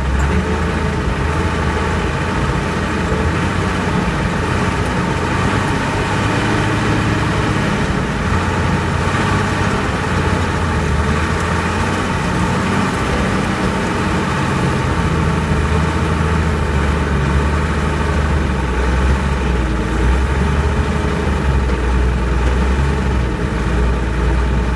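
Truck engine running steadily as the truck drives slowly, a low drone that swells and eases slightly.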